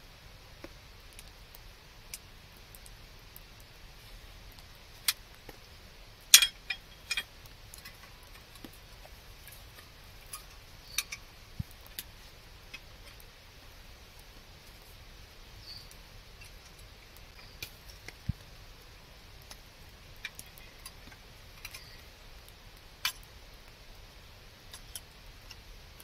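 Scattered clicks and clinks of a small portable gas stove and its gas canister being handled and set up on a folding camp table, with a short cluster of clatters about six seconds in.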